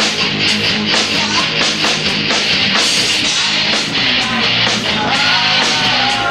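A rock band playing live at full volume: distorted electric guitar and bass over a fast, steady drum beat with crashing cymbals.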